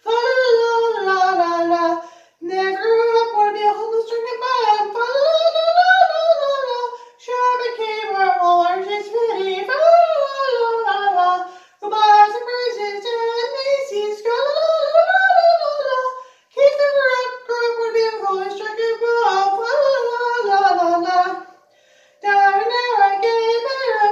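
A single voice singing unaccompanied, a wavering melody sung in phrases about five seconds long, each followed by a short breath pause.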